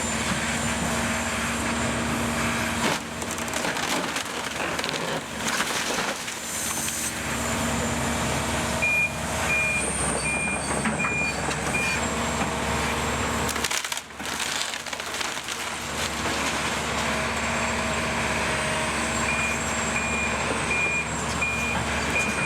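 Heavy diesel demolition machinery running while a wood-framed house is torn down, with debris crunching and splintering. A reversing alarm beeps about twice a second for a few seconds near the middle, and again near the end.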